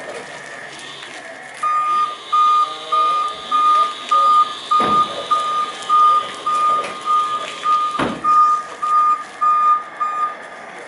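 Bendi B312 electric articulated forklift's reversing alarm beeping steadily, about two beeps a second, starting about a second and a half in and stopping shortly before the end. Two sharp knocks are heard midway and again a few seconds later.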